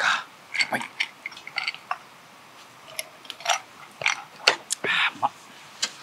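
A campfire being tended: irregular sharp cracks and knocks of firewood, with a short scraping rustle about five seconds in.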